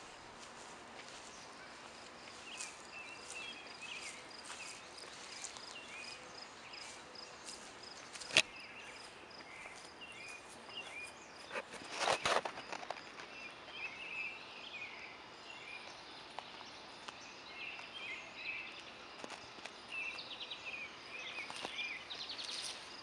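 Outdoor summer ambience: scattered bird chirps over a faint, steady high insect trill, with occasional handling clicks and a louder rustle about twelve seconds in.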